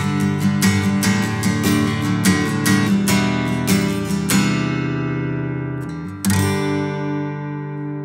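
Seagull Maritime SWS HG acoustic guitar strummed in a quick, even pattern, about three to four strokes a second. About four and a half seconds in the strumming stops and the chord rings and fades. Just after six seconds one last chord is struck and left to ring out.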